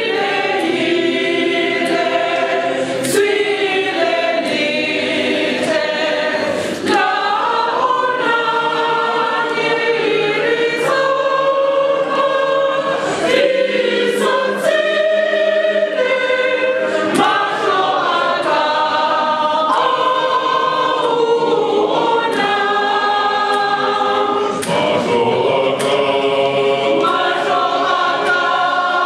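Church choir of women and men singing a hymn together, the voices holding long notes that change every second or so.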